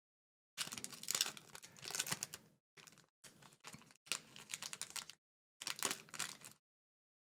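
A pack of Upper Deck hockey cards being opened and its cards handled: crinkly, clicking rustles of the wrapper and cards in several short spells, stopping shortly before the end.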